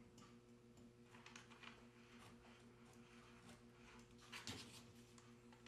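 Near silence: a steady faint electrical hum with a few faint, short scratches and rustles of screentone sheet being handled and trimmed on paper, the clearest about four and a half seconds in.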